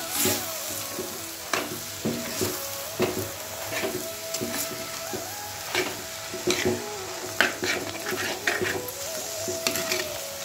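Minced chicken with onions and spices sizzling as it is sautéed in a pot, stirred by a metal spatula that scrapes and knocks against the pot in repeated, irregular strokes.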